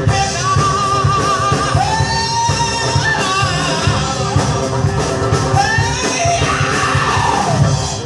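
Live rock band playing with amplified guitars and drums, a male singer holding long wavering notes over the band, heard from within the crowd.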